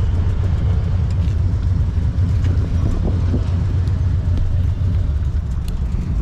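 Harley-Davidson V-twin engine running steadily while riding, a constant low rumble.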